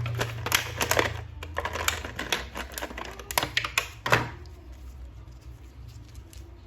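Irregular sharp clicks and taps of hard plastic from a toy action figure being handled, thick for about four seconds and then sparser.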